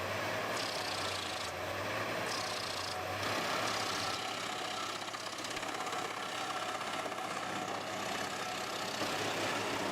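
Large mobile wood chipper's engine running steadily, with a noisy higher hiss that swells and eases at times.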